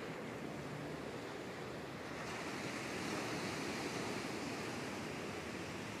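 Ocean surf washing up a sandy beach, a steady rush of breaking waves that swells louder about two seconds in.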